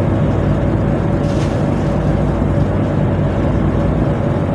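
Tugboat's diesel machinery running steadily, a loud, unbroken low drone with a faint steady hum above it.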